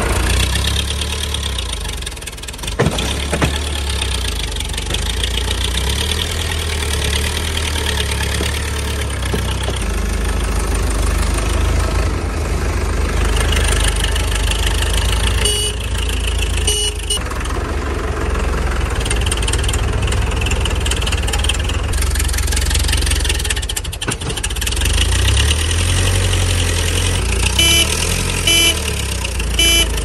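Tractor engine running steadily with a low rumble, with short horn toots twice around the middle and twice near the end.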